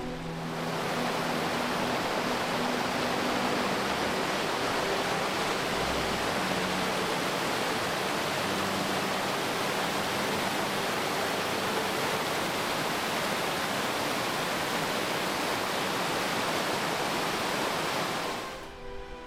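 River water rushing over bedrock slabs in shallow rapids and a low falls, a steady rush that comes in just after the start and fades out near the end.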